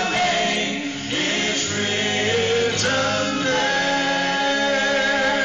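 Gospel vocal group singing in harmony with instrumental backing, settling into a long held chord in the second half.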